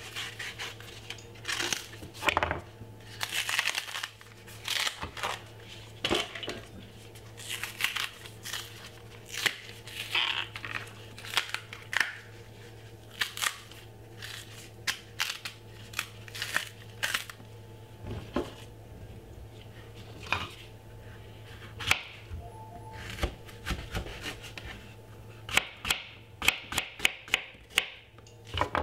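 Knife peeling a plantain, the skin scraping and tearing away in irregular strokes, then the knife slicing it on a wooden cutting board in a quick run of taps near the end.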